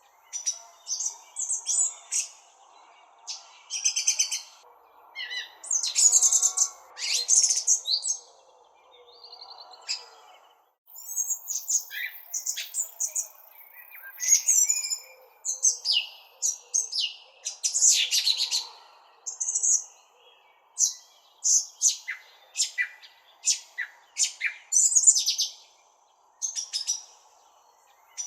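Songbirds chirping: many short, high chirps and quick trills, one after another, with a brief lull about ten seconds in, over a faint steady background hiss.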